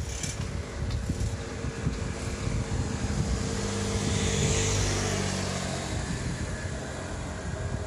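Kintetsu 8400 series electric train approaching, its running noise a steady low hum with a hiss that swells about four to five seconds in.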